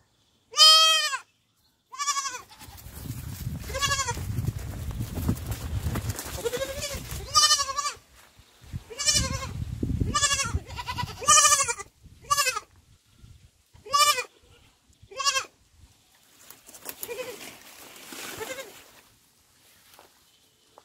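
A young goat kid bleating over and over: about a dozen short calls, one every second or two. A low rumbling noise runs under the calls for several seconds in the first half.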